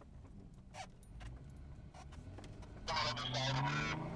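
Off-road vehicle's engine running low, then revving up from about two seconds in as it drives into a pool of muddy water. About three seconds in, loud shouting and hollering from people starts over the engine.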